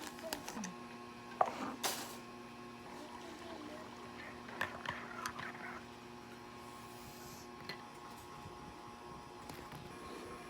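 Quiet room with a steady low hum, broken by two light knocks early on and a short patch of faint clatter in the middle.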